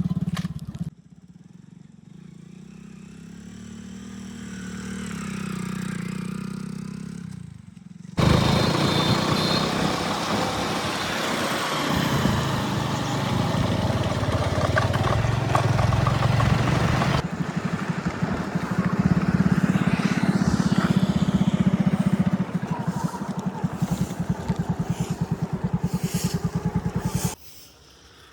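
Vehicle engine sound effects. The engine runs quieter and swells for the first few seconds, then runs loud with a fast, even pulse from about a third of the way in. It cuts off suddenly just before the end.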